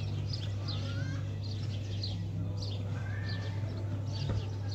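Birds chirping over and over, short high chirps about twice a second, with a steady low hum underneath. A couple of sharp knocks come near the end.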